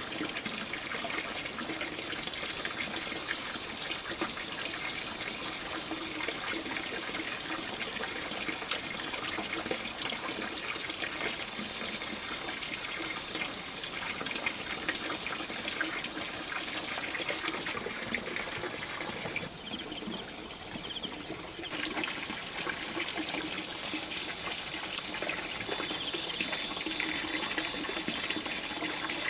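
Running water trickling and pouring steadily, easing off for a couple of seconds about twenty seconds in.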